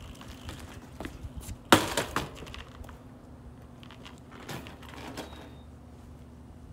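A BMX bike hitting the pavement: one loud sharp clattering impact a little under two seconds in, followed by a few lighter knocks.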